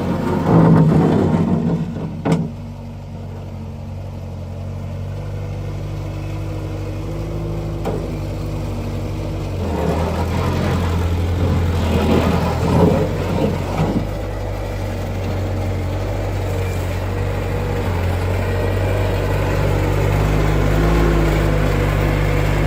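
Bobcat 130 excavator's engine running steadily, with loud clattering in the first couple of seconds. The engine gets louder about ten seconds in, and a few knocks follow between about twelve and fourteen seconds.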